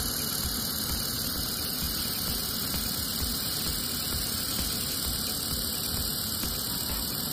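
Steady machine noise: a low hum with a bright, even hiss that does not change.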